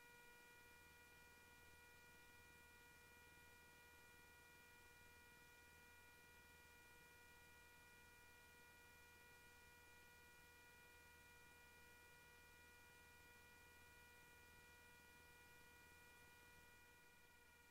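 Near silence, with a faint steady electrical hum: one low tone and a higher whine with overtones, unchanging throughout.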